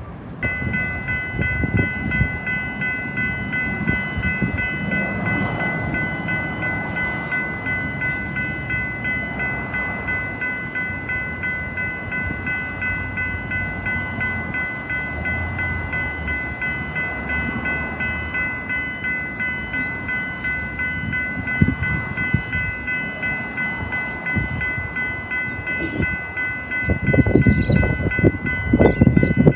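Level crossing warning bell ringing steadily with a regular pulse. Near the end a train arrives and passes loudly over the crossing, with high-pitched squeals.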